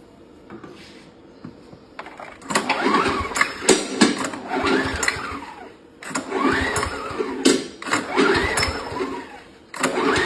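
Small engine of a remote-controlled lawn mower being cranked in three long attempts, with a pitch that rises and falls, and never catching: the mower won't start.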